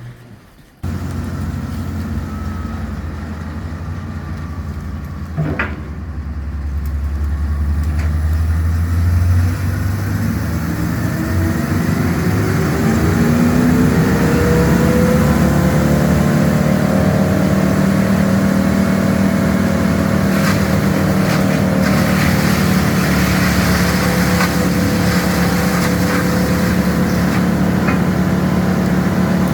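Wood chipper's engine running, its pitch climbing over several seconds as it winds up to speed, then holding steady and loud at full speed, ready for chipping.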